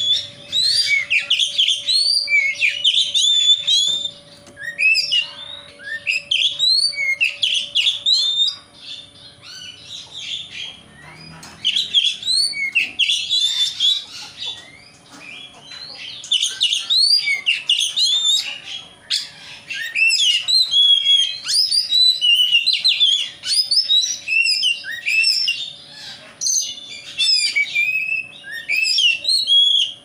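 Oriental magpie-robin (kacer) singing: fast runs of varied rising and falling whistles and chirps, in bursts with short lulls between them. This is a lure song, played to a kept kacer to provoke it into singing.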